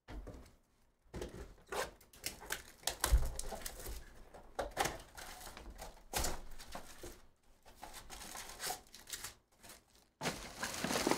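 Plastic shrink wrap being torn and crinkled off a cardboard Topps Chrome hobby box, then the box and card packs handled: a run of irregular crackles, rustles and small knocks, with a denser stretch of crinkling near the end.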